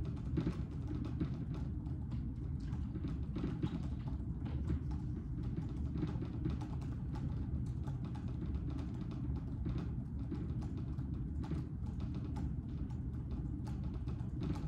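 Typing on a computer keyboard: irregular, quick key clicks over a steady low room hum.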